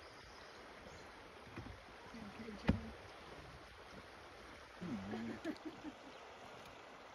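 Faint steady rush of flowing river water, broken by one sharp knock a little under three seconds in and brief low murmured voices twice.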